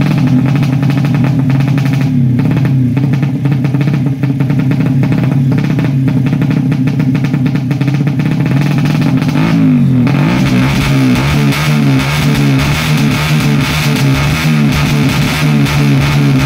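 Suzuki Satria FU 150 drag bike's single-cylinder four-stroke engine, on a PWK 38 carburettor with a DOS exhaust, running hard on the stand. Its revs are held steady at first, drop and climb again about ten seconds in, then rise and fall in repeated throttle blips.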